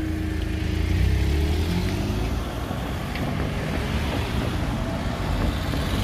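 Cars driving over a level crossing one after another, engines running at low speed and tyres on the road, with a steady hum that fades out about a second and a half in.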